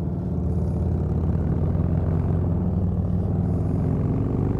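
Harley-Davidson touring motorcycles' V-twin engines running steadily at cruising speed, a low, even drone that grows slightly louder over the first second or so.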